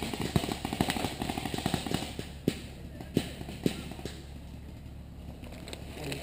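Airsoft gunfire: a fast, even rattle of shots for about two seconds, then three single shots about half a second apart.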